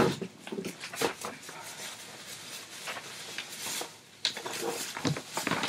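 Rummaging and handling: irregular rustling and crinkling of packets, with scattered light knocks and clicks as things are picked up and moved about.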